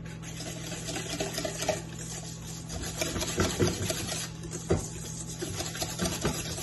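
Wire whisk beating a thick mayonnaise dressing in a stainless steel bowl: a steady wet scraping against the metal, with a few sharper clicks of the whisk hitting the bowl.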